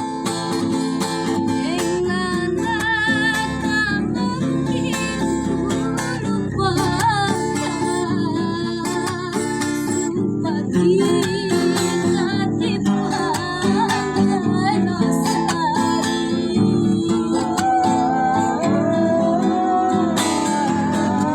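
A woman singing a melodious, wavering melody with vibrato over a plucked and strummed string instrument.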